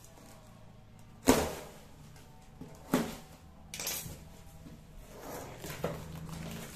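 A refrigerator condenser and its packaging being handled while unboxed: a sharp knock about a second in, two smaller knocks around three and four seconds, and light rustling and scraping, over a steady low hum.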